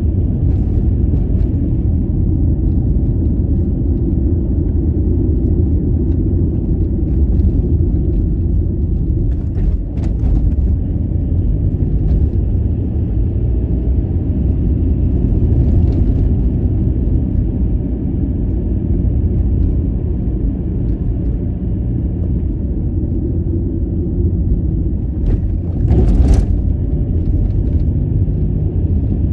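Inside the cabin of a 1998 Volkswagen Passat with a 1.9 TDI four-cylinder turbodiesel: a steady low rumble of the engine and tyres on the road while driving. There is a short thump about ten seconds in and a louder one near the end.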